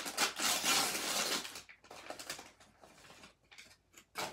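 Plastic packaging rustling and crinkling loudly for about a second and a half as a small accessory bag is handled, then a few light taps and clicks, with one sharper click near the end.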